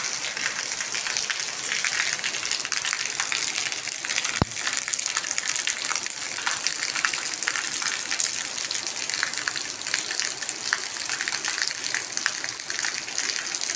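Steady rain falling on wet concrete pavement, with a stream of water pouring from a wall drain spout and splashing onto the ground. A single short click sounds about four seconds in.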